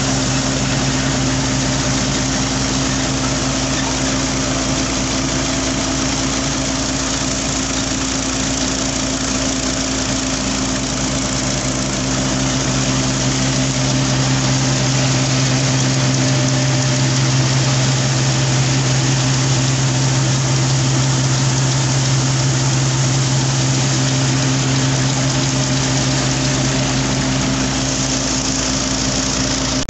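Massey Ferguson 240 tractor's diesel engine running steadily under load, powering a flour mill through a PTO shaft and belt pulleys. The drone is steady with a low hum and gets slightly louder about halfway through.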